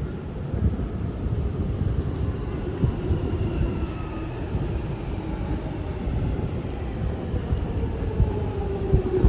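London Underground Jubilee line train (1996 stock) running along the platform, a low rumble with a motor whine that slowly falls in pitch as the train slows.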